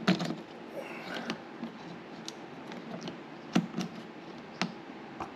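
A few scattered clicks and light knocks of hands handling a power cord and plug at a portable power station's 12-volt port, the sharpest about three and a half seconds in.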